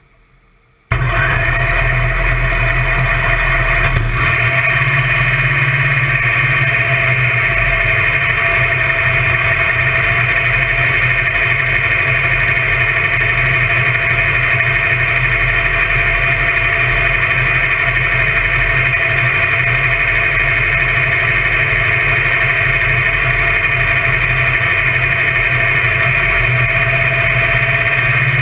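A top alcohol dragster's methanol-burning engine fires up suddenly about a second in and then runs loud and steady at an even pitch.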